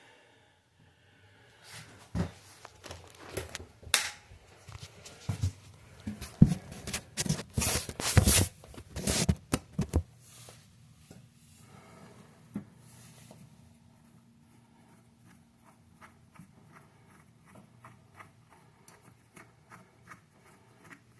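Washers and nuts being fitted onto a toilet's closet bolts by hand: irregular clicks, taps and scrapes of metal parts and porcelain over the first ten seconds or so. After that comes a faint steady low hum with scattered light ticks.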